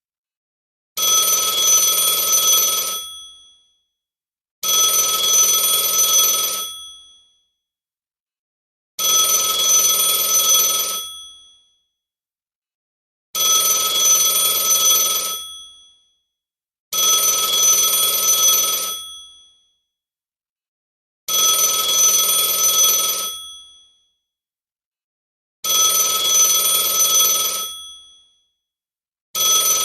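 Telephone ringing: eight rings, each about two seconds long, that start sharply and fade away, repeating about every four seconds.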